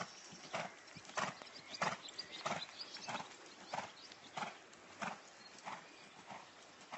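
Horse cantering on a soft arena surface, its stride beating steadily at about three strides every two seconds.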